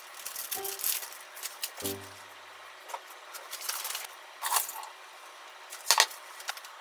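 A few soft background-music notes in the first two seconds, then kitchen handling sounds: a ceramic bowl of cut potatoes picked up and set down on the counter with light clinks, and a sharp knock about six seconds in.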